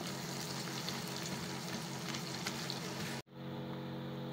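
Sliced onions sizzling in hot oil in a non-stick wok while a spatula stirs them, over a steady low hum. The sound cuts out for an instant about three seconds in, then the sizzle carries on, a little duller.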